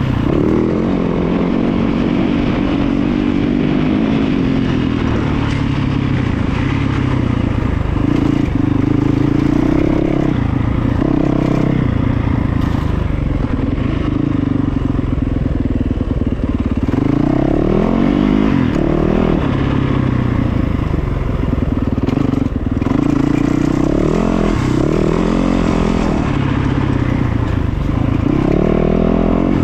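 A motor vehicle's engine running under load, its pitch repeatedly rising and falling as it revs up and eases off, with rattling over the top.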